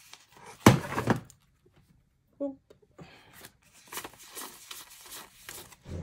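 A single sudden loud knock or bang about a second in, a household thud from someone fiddling with something in the background. After it come softer rustles of plastic banknotes being handled and counted.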